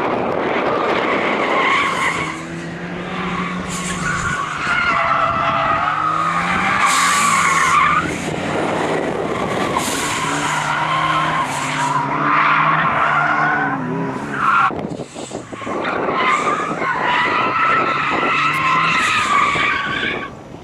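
Ford Escort RS Cosworth's turbocharged two-litre four-cylinder driven hard, its revs rising and falling with several lifts off the throttle, while the tyres squeal loudly through the corners.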